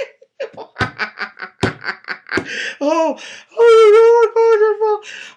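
A man laughing hard: quick breathy bursts of laughter, then a falling squeal and, about three and a half seconds in, a long high-pitched wavering squeal of laughter lasting over a second.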